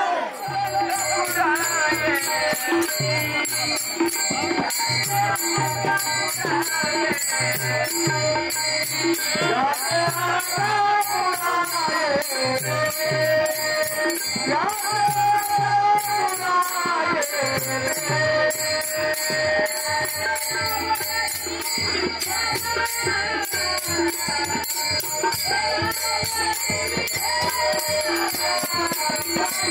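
Devotional bhajan: voices singing a melody to a steady beat of small brass hand cymbals and a drum.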